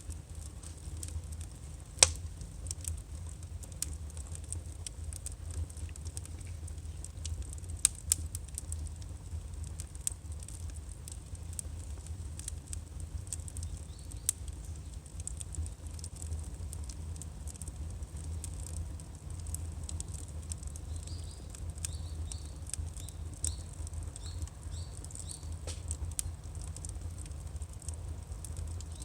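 Firewood burning: irregular crackles and sharp pops over a steady low rumble. There is one louder pop about two seconds in and two more close together near eight seconds. A short run of faint high chirps comes about three-quarters of the way through.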